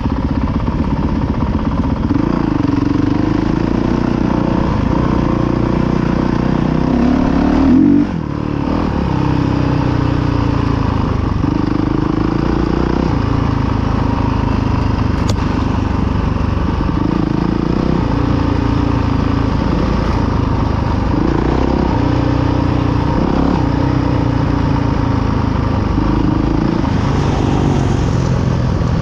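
Enduro dirt bike engine heard from on the bike, its pitch rising and falling with the throttle every second or two as it rides a trail. The revs climb to a peak about eight seconds in and then drop sharply as the throttle is shut.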